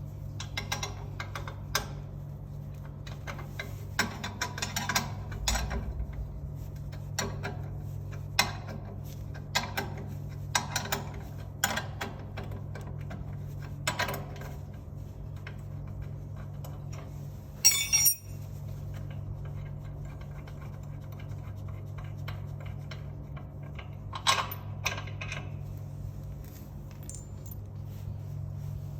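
Metal tools and machine parts clicking and clinking in irregular taps while a noodle-making machine's conveyor is being taken apart, with one louder ringing metal clang a little past halfway. A steady low hum runs underneath.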